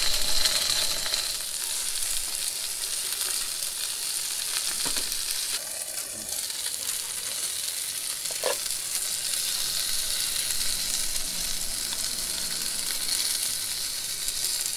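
Chicken yakitori skewers and sausages sizzling steadily in a ridged grill pan over a twin-burner gas camp stove.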